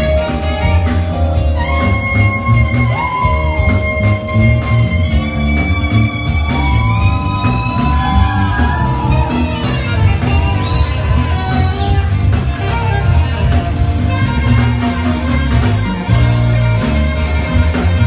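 Music: a melody of held notes that slide in pitch, over a strong, pulsing bass.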